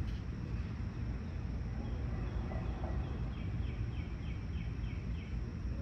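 Steady low background rumble, with a bird calling in a quick run of short chirps, about three a second, from about two seconds in until near the end.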